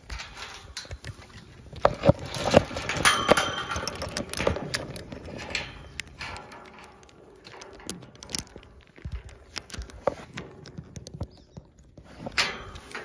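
Galvanised metal tube farm gate being handled, its metal parts rattling and clanking in irregular clicks and knocks with a short metallic ring, busiest in the first half and again near the end.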